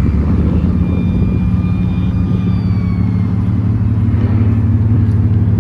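Car engine idling steadily with a low, even exhaust note.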